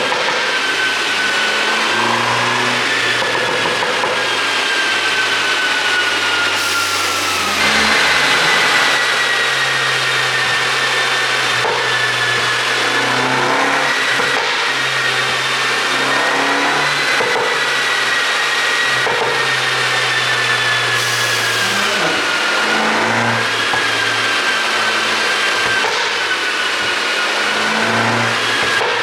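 MINI Cooper S convertible's turbocharged four-cylinder engine running, with a steady high whine over the engine note that steps up in pitch about eight seconds in and then drifts gently up and down.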